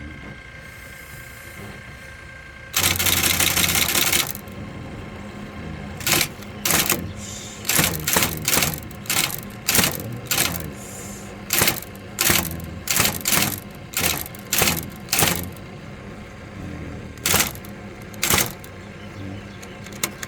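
VariTyper Model 1010 composing typewriter typing a sample line, about fifteen separate key strikes at roughly two a second, then two more spaced strikes. Before the typing there is a loud burst of machine noise lasting over a second.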